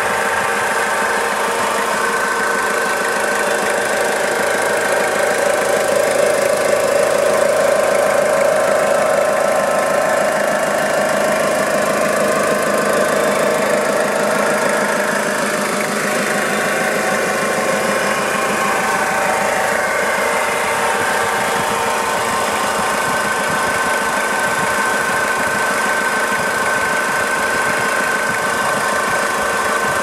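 Toyota 5L four-cylinder diesel engine running warm at idle, with a high steady whine above the engine note that drops back midway and returns. The owner describes the engine's unexplained noise as a rattly bearing noise and a whizzy noise that doesn't sound correct.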